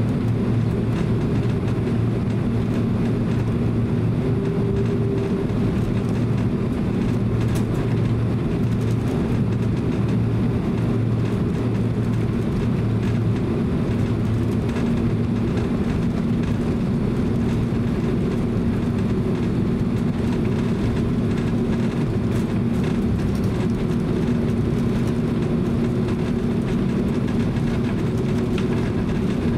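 Steady cabin noise of a Boeing 767-300 taxiing, heard from inside the cabin: the twin jet engines running at taxi power under an even low rumble with a low steady hum.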